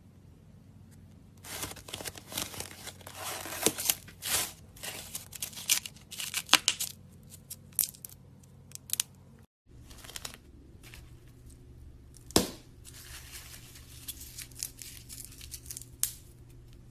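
Slime being squeezed and stretched by hand, with many sharp pops and crackles of trapped air bubbles bursting. The crackling breaks off for a moment just over halfway, and one loud pop comes about twelve seconds in.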